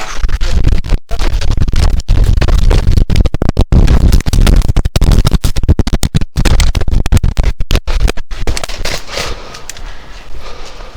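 Strong wind buffeting on the camera microphone: a loud, choppy rumble with a few sudden brief dropouts.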